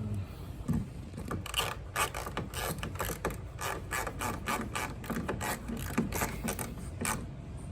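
Hand ratchet clicking in quick runs as it drives a tail light housing's screws in.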